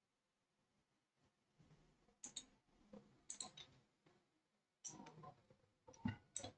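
Faint, irregular clicks of computer keyboard keys: a few single keystrokes and short clusters of them, with near silence in between.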